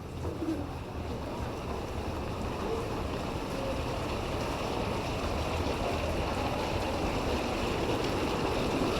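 Steady rain falling, a dense hiss that grows gradually louder.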